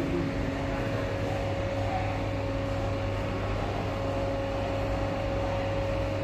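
CNC aluminium arch-bending machine running with a steady electric hum: a low drone with a few constant higher tones over it.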